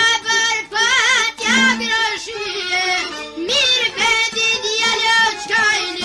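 Albanian folk song: a high solo voice sings wavering, ornamented phrases over light instrumental accompaniment.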